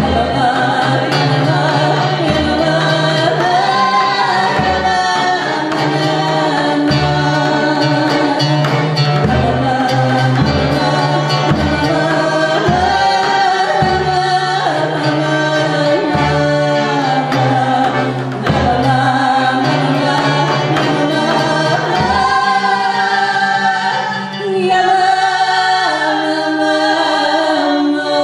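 Live folk band music: women singing over violin, accordion and oud, with a large double-headed bass drum beating a low stroke about once a second.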